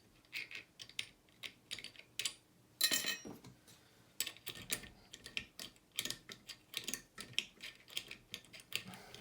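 Irregular light metallic clicks and rattles from handling a Western Electric 29B five-lever lock and its picking tools after it has been opened, with a short scraping cluster about three seconds in.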